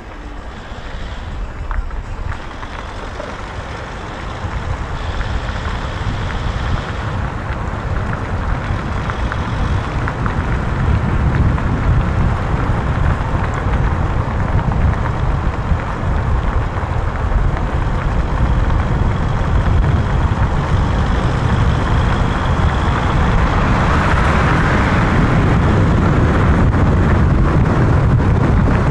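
Steady rumble and wind noise of a moving vehicle, growing louder over the first ten seconds or so and then holding level.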